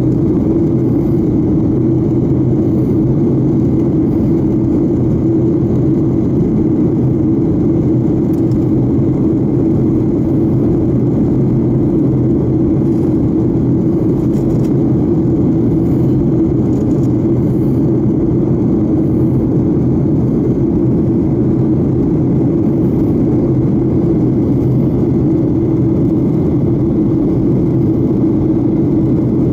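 Steady engine and airflow noise inside a jet airliner's cabin during the climb-out after take-off, with a strong, even low hum.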